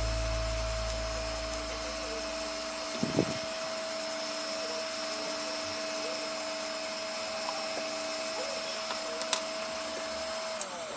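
Steady electrical whine from a repaired 1200 W 12 V power inverter running, with a low hum that fades out over the first couple of seconds and two short clicks. Near the end the whine slides down in pitch and the sound drops.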